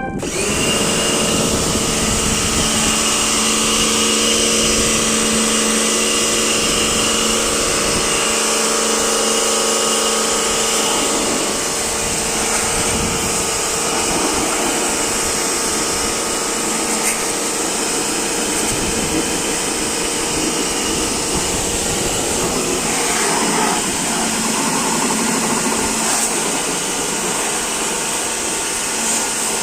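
An electric motor running steadily under a loud hiss. Its steady pitch starts to waver about a third of the way in.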